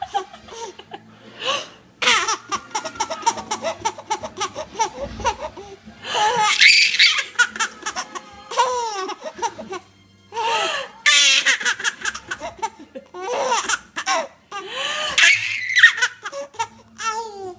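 Six-month-old baby laughing in repeated bouts: quick runs of chuckles and several loud, high-pitched squealing laughs.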